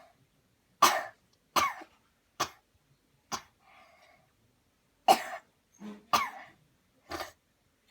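A person giving deliberate coughs on cue after a deep breath in: about eight short, sharp coughs in two runs of four, the second run starting about five seconds in.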